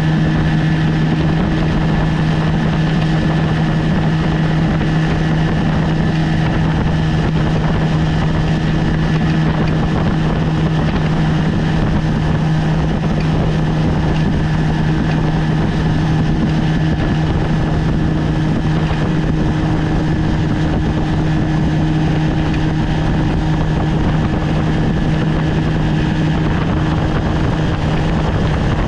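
1973 Johnson 20 hp two-cylinder two-stroke outboard motor running at a steady speed, pushing the boat along, with wind on the microphone.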